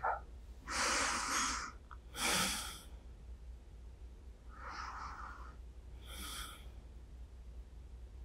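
A woman's slow, sleepy breathing close to a binaural microphone: two breaths in and out, the first pair louder and the second softer.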